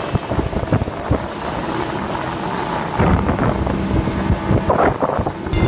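Speedboat running under way, its engine sound mixed with wind buffeting the microphone; it gets louder about three seconds in.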